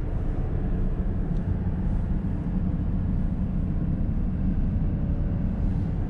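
Steady road noise inside a moving car's cabin: an even low rumble of tyres and engine.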